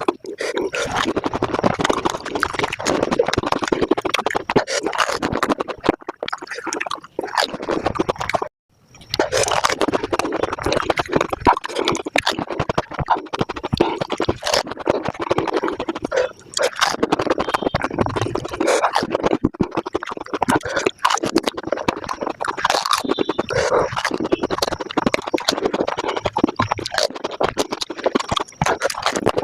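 Pani puri eating sounds sped up about five times: a dense, rapid stream of crunching and chewing clicks, broken by a short silent gap about eight and a half seconds in.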